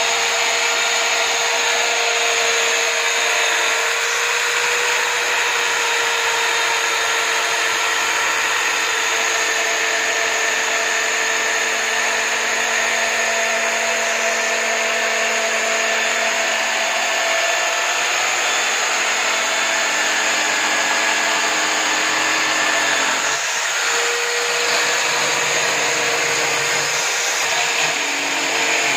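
Electric drill mounted upright in a drill-press stand, spinning a sanding drum as a homemade bench sander, running steadily while the edge of a thin wooden board is sanded against it. The motor's hum wavers with the load and falters briefly about three-quarters of the way through.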